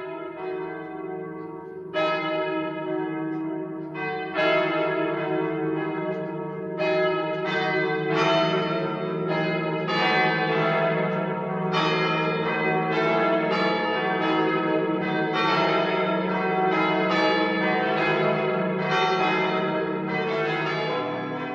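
Church bells ringing, struck one after another, each stroke ringing on under the next. The strokes come slowly at first, then faster and overlapping from about seven seconds in.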